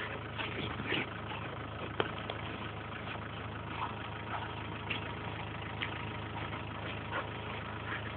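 Vehicle engine idling steadily, with one sharp click about two seconds in.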